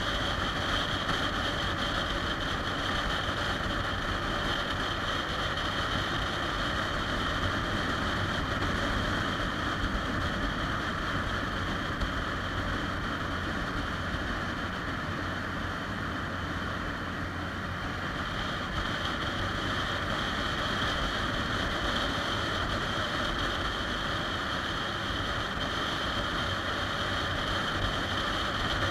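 Cruiser motorcycle cruising at a steady speed, heard from a handlebar-mounted camera: a low engine drone under constant wind rush on the microphone.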